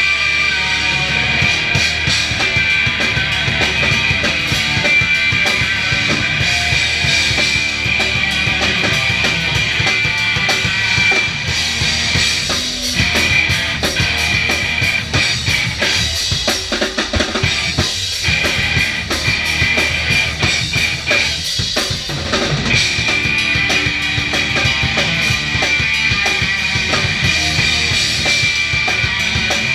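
Hardcore punk band playing live at full volume, the drum kit's bass drum and snare to the fore. About twelve seconds in the music turns choppy, with stop-start hits, for roughly ten seconds before the full band comes back in.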